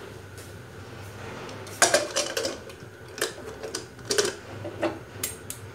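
Aluminium pressure cooker's lid being fitted and its handles pressed together to lock: a run of metal clanks and clicks starting about two seconds in, over a low steady hum.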